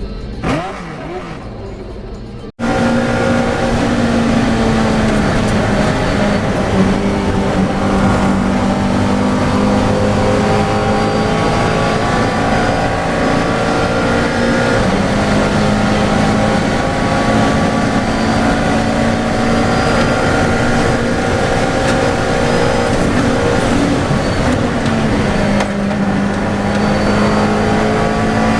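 V8 race car engine running continuously at high revs, its pitch sagging and climbing slowly as it holds speed. A short, quieter revving passage comes first and cuts off abruptly about two and a half seconds in.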